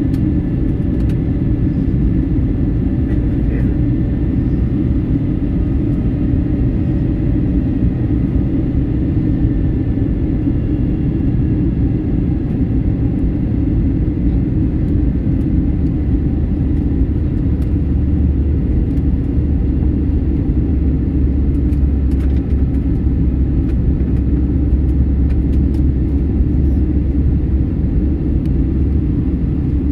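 Passenger airliner cabin noise: a loud, steady rumble of the engines and rushing air, with a faint high engine whine that drifts slowly lower in pitch. The low rumble grows a little stronger past the middle.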